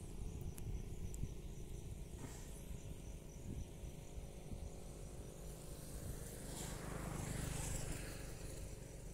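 Outdoor rural ambience: a steady low rumble with faint insects chirping high above it, and a rush of noise that swells and fades about seven seconds in.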